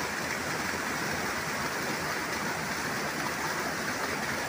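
Waterfall and fast-flowing river water rushing steadily, an even hiss-like roar with no change.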